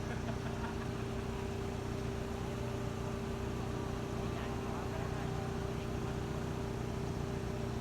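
A heavy vehicle's engine running steadily at constant speed, an even drone with no change in pitch.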